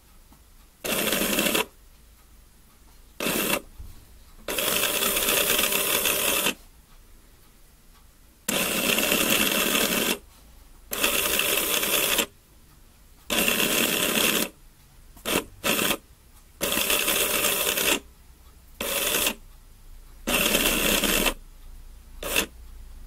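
Hobby servo of a model-boat rotor pitch-control mechanism whirring through its gearing in about a dozen start-stop runs, each from a fraction of a second to about two seconds long, with short pauses between.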